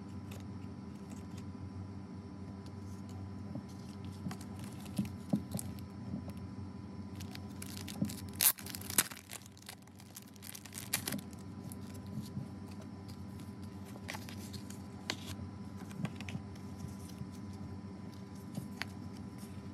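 Clear plastic packaging sleeve crinkling and being torn open, loudest about eight to eleven seconds in, with scattered light taps and rustles of cards and card-stock being handled over a faint steady hum.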